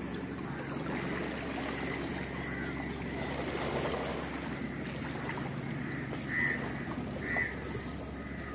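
Steady low hum of a boat engine across open water, with wind and lapping water. Two short high calls stand out about six and seven seconds in.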